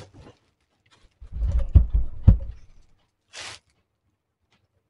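A Joseph Joseph stainless-steel compactor bin being set down on the floor: a low rumble and two thumps about half a second apart, then a short rustle about a second later.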